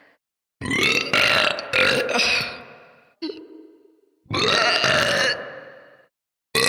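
Loud human burps: two long, drawn-out burps of about two seconds each, with a short burp between them, separated by abrupt silent gaps. Another burp begins at the very end.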